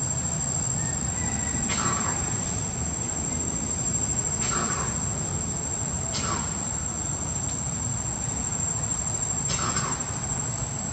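Insects, crickets or cicadas, keeping up one steady high-pitched buzz, with a low rumble beneath and four short, scratchy sounds spread across it.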